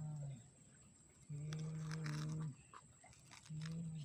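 A person humming a steady low note in spurts of about a second, with faint scraping and clicking between them as a toy excavator is pushed through sand.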